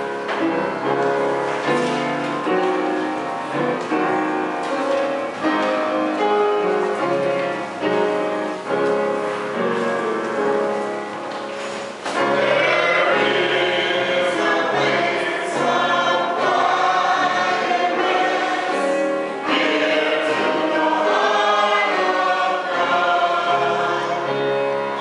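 Church congregation singing a gospel hymn with keyboard accompaniment; the singing becomes louder and fuller about halfway through.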